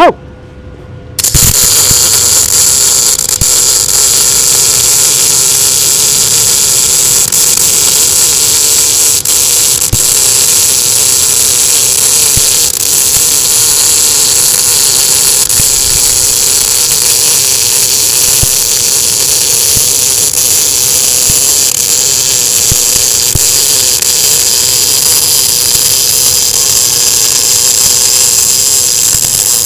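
MIG welding arc burning steadily as the torch lays a continuous bead on steel plate with the wire feeding: a loud, even, crackling hiss that strikes up about a second in.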